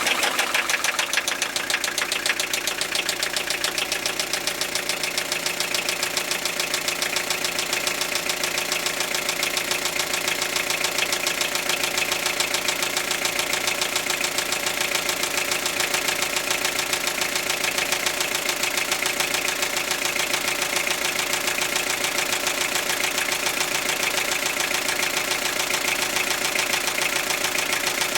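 Toyota 3C-TE four-cylinder turbodiesel idling steadily, with a knock running through its rapid clatter.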